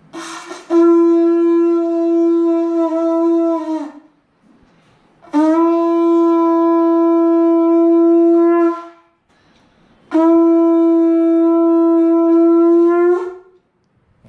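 Conch shell (shankha) blown in three long, steady blasts of about three and a half seconds each, with short pauses between them.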